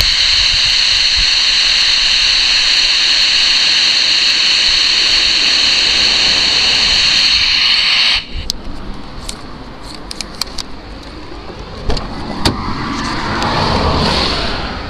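Steady, loud hiss of open-channel static from a Harvard WT1 27 MHz CB walkie-talkie, whose receiver has no squelch; it cuts off suddenly about eight seconds in. After that come a few faint clicks, and near the end a passing car swells up.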